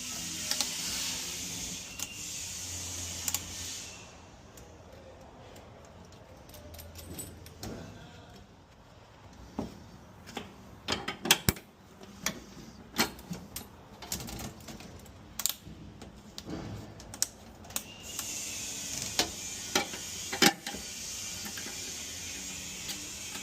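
Irregular clicks and clinks of small metal parts and tools being handled during electrical installation work, with a steady hiss in the first few seconds and again in the last five.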